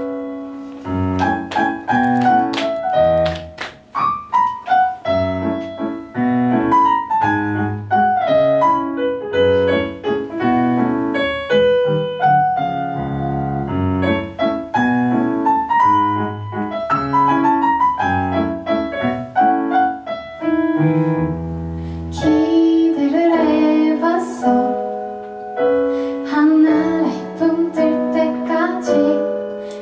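Solo piano playing a gentle song introduction. About two-thirds of the way in, a woman's singing voice comes in over the piano.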